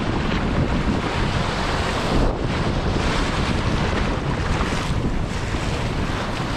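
Sea waves breaking and washing over shore rocks, a steady surf rush, with wind buffeting the microphone.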